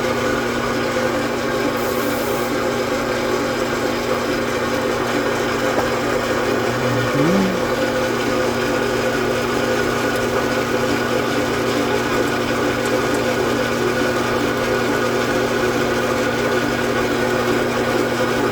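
Metal lathe running under power feed, its tool taking a cut along the workpiece while turning a Morse taper. A steady hum of the motor and gearing runs under a steady rasp of cutting. A short rising tone comes about seven seconds in.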